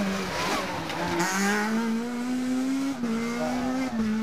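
Rally car engine pulling hard under full throttle, its pitch climbing steadily and dropping sharply at upshifts about three and four seconds in.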